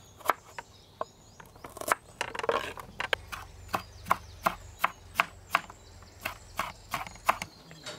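Kitchen knife chopping small red onions and a tomato on a wooden cutting board: a run of sharp knocks of the blade striking the board, coming about three a second from about three seconds in.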